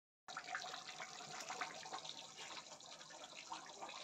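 Faint, steady hiss with fine crackles of curry gravy simmering and bubbling in a pan on a gas stove.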